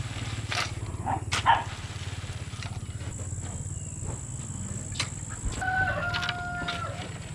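A steady low machine hum with scattered sharp knocks and clicks. About five and a half seconds in comes a short held call on one pitch, dropping slightly, that lasts about a second.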